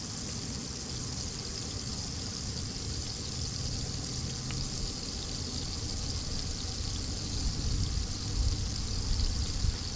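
Steady sizzling hiss of butter and olive oil heating in a hot pan on a Coleman propane camp stove, over a low rumble, with a few soft knocks near the end.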